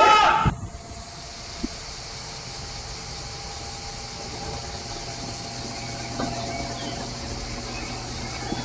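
A loud shouted voice cuts off at the very start, then steady background hiss with a low hum (room tone), and a faint click about a second and a half in.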